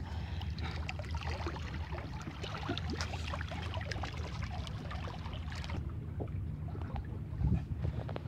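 Sea water splashing and trickling against the side of a boat as a large conger eel is hauled up alongside, over a steady low hum. A dull thump near the end as the eel comes onto the deck.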